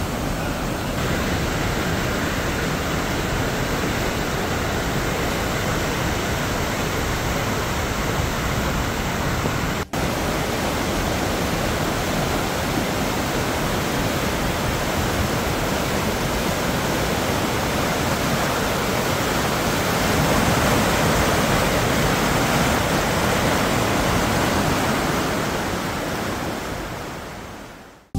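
Swollen, muddy floodwater rushing steadily. The noise cuts out for an instant about ten seconds in, swells a little later on, and fades out at the end.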